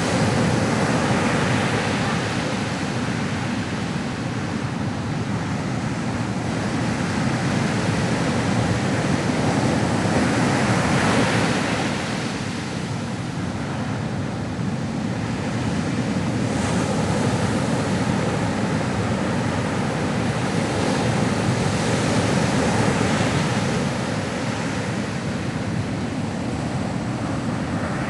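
Ocean waves breaking and washing on shore, a continuous rushing surf that swells and eases every several seconds.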